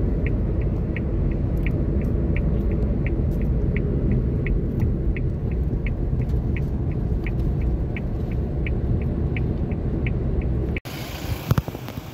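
Suzuki Alto 660 cc at motorway speed, heard from inside the cabin: a steady road and engine rumble, with the turn indicator ticking about three times a second as the car signals for its exit. Both cut off abruptly near the end.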